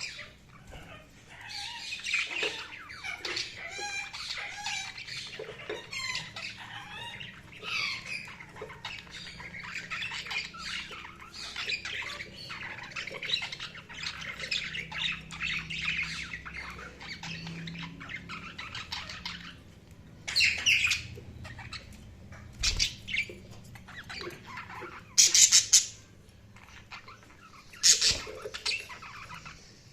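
Budgerigars chattering and warbling in a long run of rapid chirps for about the first twenty seconds, then a few separate, louder squawks near the end.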